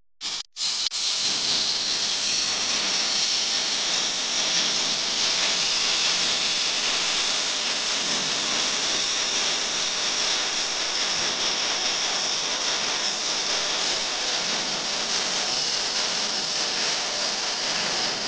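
Steady hiss of a pressurized spray from a thin hose nozzle worked into the spark plug holes of a petrol engine during carbon cleaning. It stutters briefly at the start, then runs evenly.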